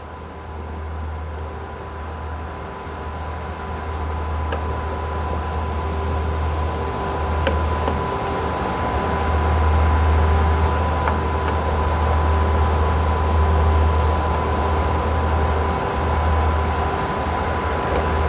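Steady machine noise from the transmitter's running cooling fans and air handling: a low rumble with a constant thin whine above it, growing gradually louder. A few faint clicks sound through it.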